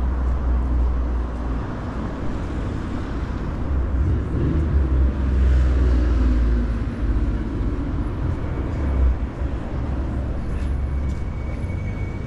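Road traffic on a multi-lane city street: cars passing with a steady low rumble and tyre noise, one vehicle passing louder about five seconds in.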